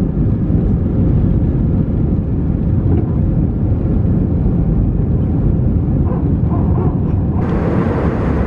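Jet airliner engines at takeoff power, heard inside the cabin during the takeoff roll and liftoff. It is a loud, steady, deep noise with a held tone in it. Near the end it shifts abruptly to a brighter cabin noise.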